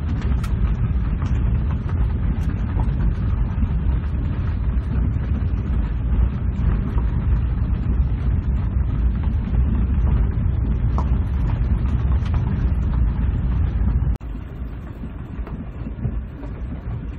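Road noise inside a four-wheel-drive vehicle's cab as it rolls over a bumpy gravel road: a steady low rumble from the tyres and drivetrain with light clicks and rattles. About fourteen seconds in it drops suddenly to a quieter rumble.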